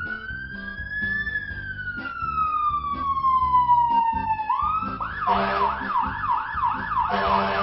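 Fire-truck siren sounding: a long wail that rises for about a second and then falls slowly, switching about five seconds in to a fast yelp of roughly three sweeps a second.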